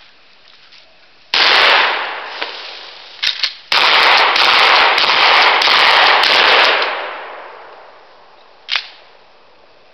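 Stevens Model 620 12-gauge pump shotgun firing: a shot a little over a second in that fades away, two quick clacks of the pump action being worked, then another shot followed by a few seconds of loud blast and echo with more sharp reports in it, fading out. A single sharp clack comes near the end.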